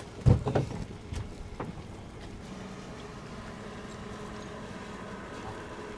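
A sharp knock followed by several thumps and knocks in the first second and a half, from hands working with gear on a boat, then a steady low hum.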